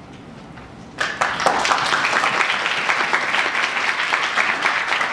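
Audience applauding, breaking out suddenly about a second in and going on steadily: many hands clapping at the end of a talk.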